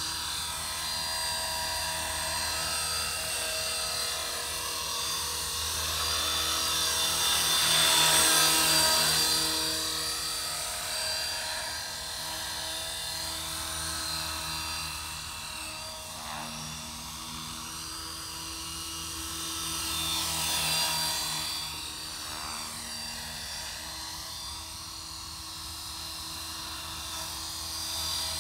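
Electric 450-size RC helicopter with a 3,500 kV brushless motor flying: a steady high whine from the motor and drive gears with rotor blade swish. It swells and bends in pitch as the helicopter passes close, once about 8 seconds in and again about 21 seconds in.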